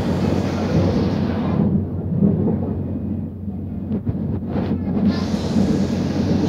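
Madrid Metro Line 5 train running through a tunnel, heard from inside the carriage: a loud, steady rumble with a low hum. A few sharp clicks come about four seconds in.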